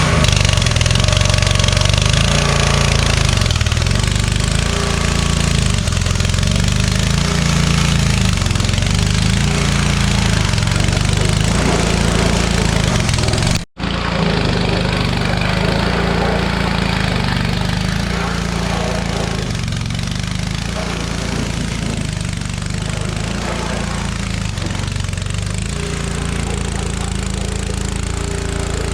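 Small gasoline engine of a rebuilt pressure washer running steadily loud, its speed wavering up and down while it warms up.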